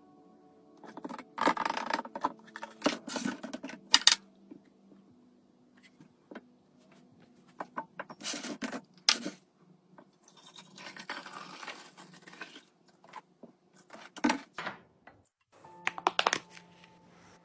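Household items and packaging handled during restocking: a run of sharp clicks and clacks with a couple of longer rustling stretches, over faint steady background music.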